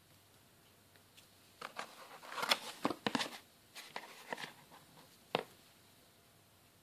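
A cardboard box of stick firecrackers being opened and handled by hand: a cluster of rustles and sharp taps, with a last single click about five seconds in.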